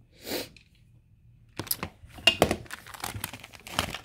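Clothing being handled and shuffled: a brief soft swish at the start, then from about a second and a half in a busy run of crinkling, rustling and sharp clicks and taps as the garments are moved.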